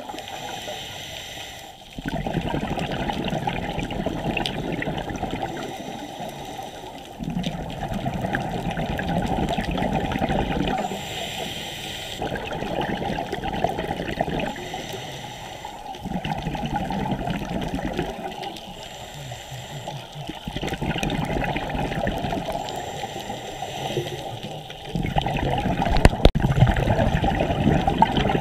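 Scuba regulator breathing heard underwater: exhaled bubbles gurgling in bursts of a few seconds, coming round about every four to five seconds with quieter gaps between.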